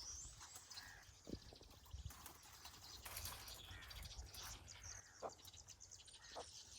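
Faint outdoor ambience with scattered short bird chirps over a low rumble.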